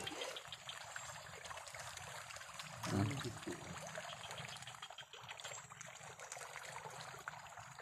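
Many small splashes in a steady faint patter as a crowd of fish thrashes at the pond surface, snatching floating feed pellets. A brief low sound comes about three seconds in.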